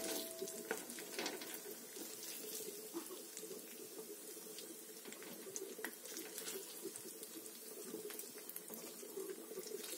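Hot oil sizzling steadily in a kadai with a scatter of small crackles, as bite-sized chicken pieces finish frying.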